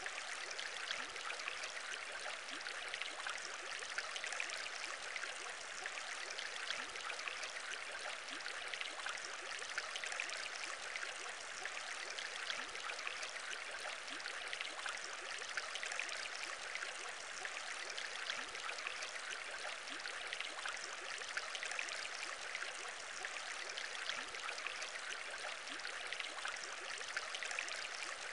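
Aquarium bubbles rising through water: a steady wash of water noise dotted with many small pops, unchanging throughout.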